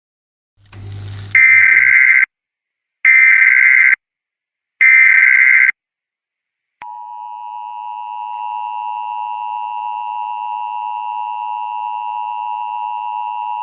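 Emergency Alert System broadcast: three short bursts of warbling SAME header data, then a steady dual-tone attention signal that starts about seven seconds in and holds.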